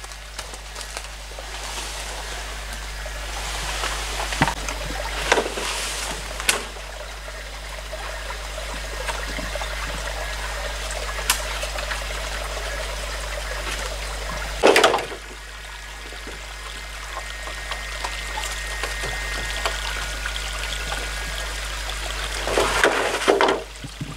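Small forest stream trickling steadily over rocks, with a few brief knocks and clatters as hollow bamboo poles are handled, the loudest about fifteen seconds in and another near the end.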